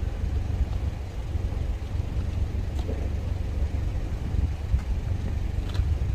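A steady low rumble, with a few faint clicks.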